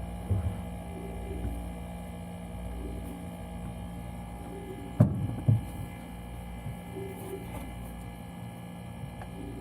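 Refrigerator running with a steady hum, and two dull thumps about halfway through, half a second apart.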